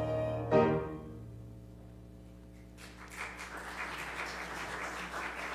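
A church choir with accompaniment ends its anthem on a final chord that dies away about a second in. From about three seconds in, the congregation applauds for a few seconds.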